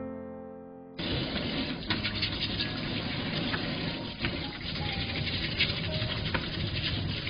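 A piano note fades out, then about a second in tap water starts running steadily into a stainless steel sink, splashing over blue swimming crabs as they are scrubbed clean with a brush.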